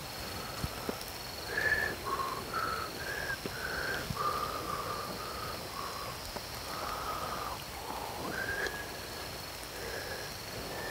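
Outdoor night ambience: insects trilling steadily and high, over which an animal gives a run of short calls that step up and down in pitch.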